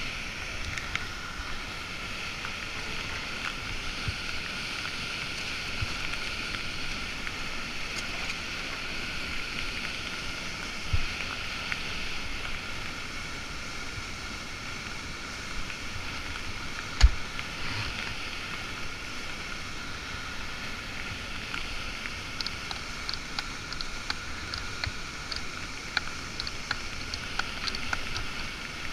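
Steady roar of a large waterfall just below, with a few knocks close by, the loudest about seventeen seconds in, and light scattered ticks in the last several seconds.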